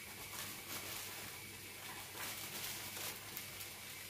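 Faint rustling and crinkling of a bag of bread flour as the flour is poured and shaken out of it into a mixing bowl, with a soft hiss and several brief crackles.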